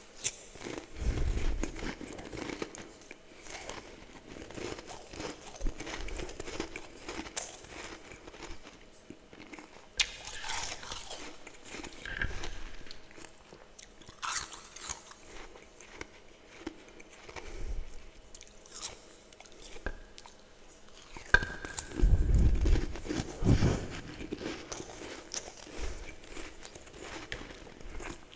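A person biting and chewing soft humidifier frost close to the microphone: a continual run of crisp crunches, with heavier bites about a second in and again around twenty-two seconds in.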